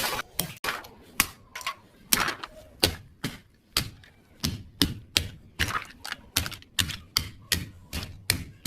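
A rapid run of sharp hits on an object, about two or three a second at an uneven pace, each a short crack that dies away quickly.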